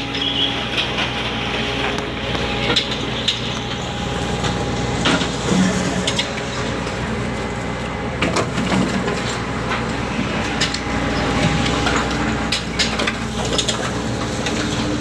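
Steady drone of ship machinery with irregular knocks and clatter throughout, from frozen tuna being handled and moved during unloading.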